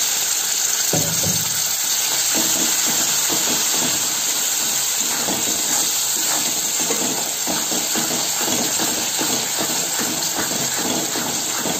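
Onion-tomato spice masala sizzling and bubbling in hot oil in a metal kadai after a splash of water, with a metal spatula scraping and stirring through it. A soft knock about a second in.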